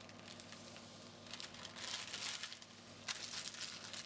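Parchment paper crinkling faintly as it is folded and pressed into a sealed packet around a whole fish, in a few scattered rustles.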